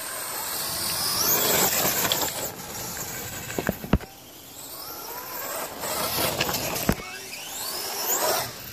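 Brushless-motor RC rock crawler running, its electric motor whine rising and falling several times as the throttle is worked, over tyre noise on wet ground and gravel. Two sharp clicks cut in, about four and seven seconds in.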